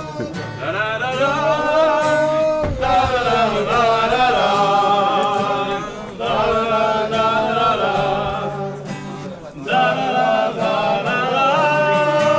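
Singing with music: held, sliding sung notes in phrases a few seconds long, with short breaks about every three seconds, over a steady accompaniment.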